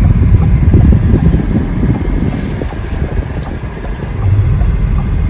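Car driving on the road: a steady low rumble of road and engine noise with a hiss above it, dipping a little about four seconds in.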